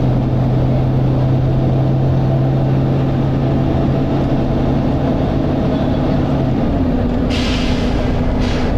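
Volvo B9TL bus's diesel engine running under way, heard from inside the bus as a loud steady drone with a strong hum. About six and a half seconds in the hum stops and the drone drops in pitch, followed by two short hisses near the end.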